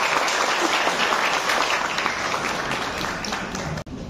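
Applause: many hands clapping in a dense, even patter that cuts off suddenly near the end.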